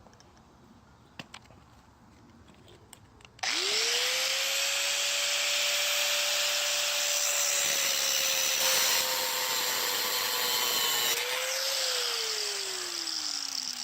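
A handheld electric power tool, used to cut or grind a shifter part, starts about three and a half seconds in, its motor rising to a steady whine under a loud hiss. Near the end it is switched off and winds down, the pitch falling steadily. A few light clicks come before it starts.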